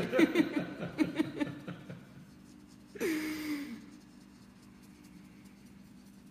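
A woman's soft laughter trailing off, then, about three seconds in, a short breathy vocal sound that falls in pitch. After it only a faint steady hum remains.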